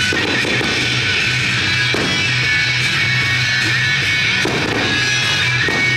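Rock music with electric guitar, loud and steady.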